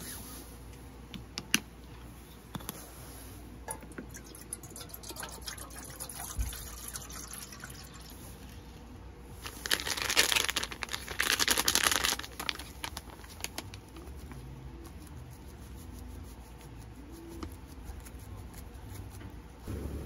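Foil instant-soup sachet crinkling and tearing open in two loud rustling bursts about ten seconds in, among light clicks and knocks of camp cookware.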